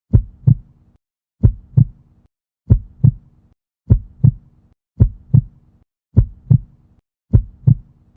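Heartbeat sound effect: a steady lub-dub rhythm of paired low thumps, about seven beats in a row at a slow, even pace of roughly fifty a minute.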